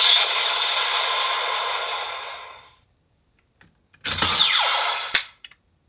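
Electronic sound effect from a Kamen Rider Zero-One DX transformation toy fading out. After a short pause comes a second effect with a falling sweep, followed by a few sharp plastic clicks.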